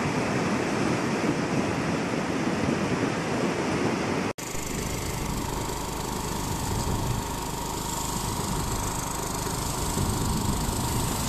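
Muddy floodwater rushing in a torrent, a steady noisy rush. About four seconds in it cuts off abruptly to another flood surge pouring down an earthen ditch, a rush with more low rumble and a faint steady tone.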